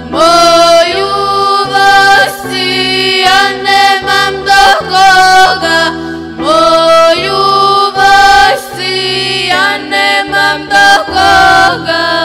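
Female voices singing a Serbian folk song with an ornamented, bending melody in phrases of a second or two, backed by a folk-rock ethno band holding sustained low notes.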